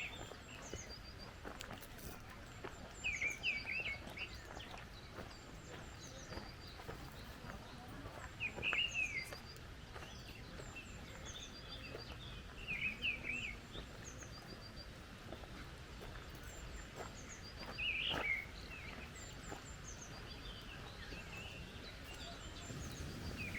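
Wild birds calling: short bursts of chirps every few seconds, with fainter high-pitched chirps between, over a faint steady outdoor background.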